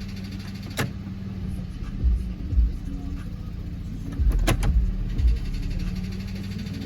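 2011 Dodge Charger's 3.6 L V6 engine running with a steady low hum, under background music with a heavy bass beat. A few sharp clicks cut through about a second in and again near the middle.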